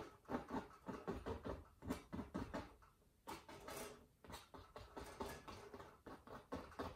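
Palette knife scratching and tapping on wet oil paint on canvas: a faint run of quick, irregular light scrapes and ticks, with one longer scrape a little past the middle.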